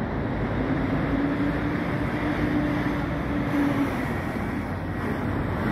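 City street traffic: vehicles passing, with a steady engine hum that holds for about three seconds and fades out near four seconds in.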